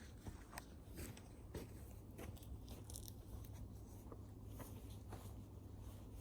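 Wood fire crackling, with irregular sharp pops and snaps over a faint, steady low rumble.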